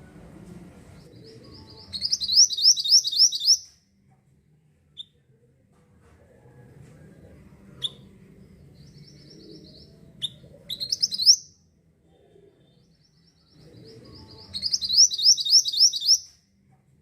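Black-naped monarch (mantenan) singing three quick phrases of rising whistled notes, about six to eight notes each, with single sharp call notes in between.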